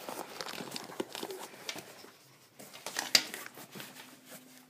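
Rustling and small knocks from handling an unzipped fabric headphone carrying case and the headphones inside it, with one sharp click about three seconds in.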